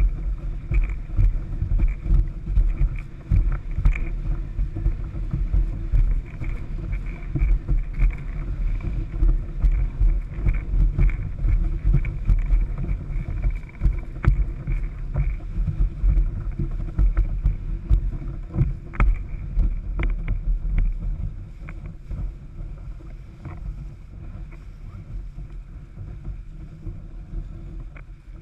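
Windsurf board planing fast over choppy water, with wind buffeting the rig-mounted action camera's microphone and frequent sharp slaps of spray and chop on the board. The rush eases off about three-quarters of the way through.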